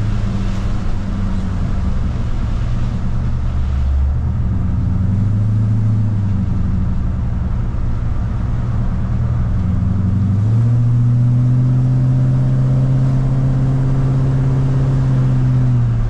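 LS V8 engine of a GMC Squarebody pickup running on the road, firing on all eight cylinders with no misfire. Its note drops about four seconds in, rises again a little past ten seconds, and then holds steady.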